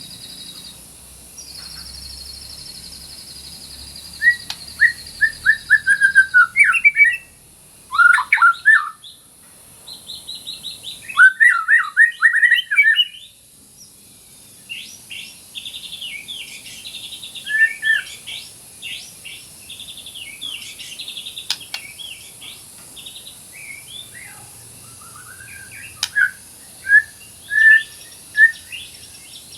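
White-rumped shama singing a varied song: a high buzzy trill for the first several seconds, then bursts of quick whistled notes, downslurred note series and chattering phrases separated by short pauses. A faint steady hiss lies underneath.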